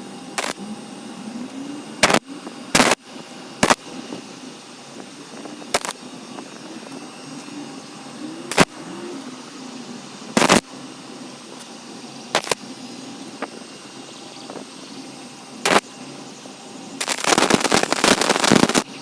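Irregular sharp knocks and clicks, about a dozen, spread unevenly, then a loud rattling burst lasting about two seconds near the end.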